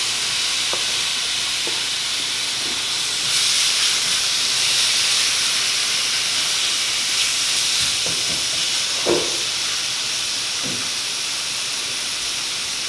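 Freshly added chopped bacon sizzling in a hot skillet: a steady frying hiss that gets louder about three seconds in, with a few faint taps as it is stirred with a wooden spoon.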